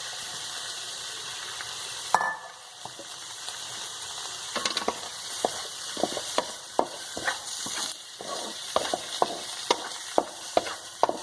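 Onion and spice mix sizzling in hot coconut oil in a kadai. About two seconds in there is a knock and the sizzle dies down as the chopped fish roe goes into the pan. Then a spatula clicks and scrapes against the pan, about twice a second, as the mix is stirred.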